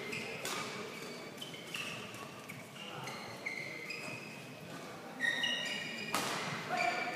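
Court shoes squeaking on a badminton court mat, mixed with a few sharp racket-on-shuttlecock hits, in a large sports hall.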